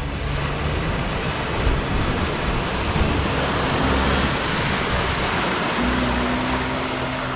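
Off-road vehicle splashing through a river crossing: the engine runs under a steady rush of churned water that swells about halfway through.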